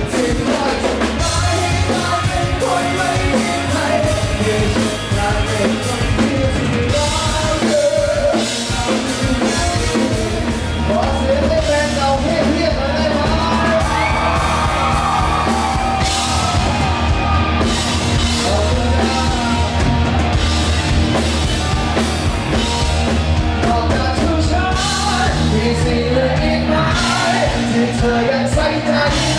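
Live rock band playing: electric guitars and drum kit, with a man singing over them.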